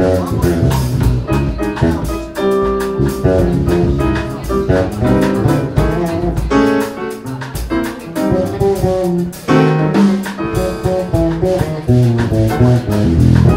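A jazz trio of piano, bass guitar and drum kit playing live, with pitched notes over steady cymbal and drum strokes.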